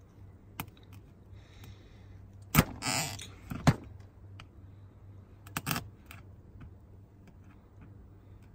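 Crab legs being handled and their shells cracked: a few sharp clicks and a short crackling rustle a few seconds in, over a low steady hum.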